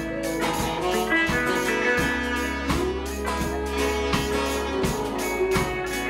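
A live band playing a groove, with acoustic guitar strumming over electric guitar, keyboards and drums. A long melody note bends up and down through the middle.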